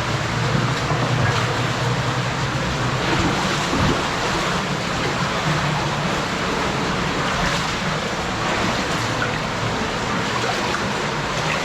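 Steady rush of flowing water echoing in a cave, with a few faint knocks.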